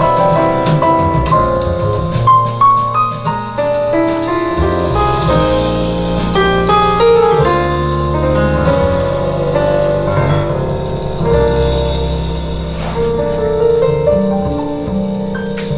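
Piano-led recorded music played over a stereo system's two-way floor-standing loudspeakers, which are driven actively through a digital crossover.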